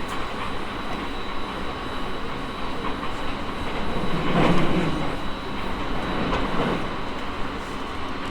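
Running noise inside an E217 series commuter train on the move: a steady rumble of wheels on rail with thin steady whining tones over it, swelling louder for about a second near the middle.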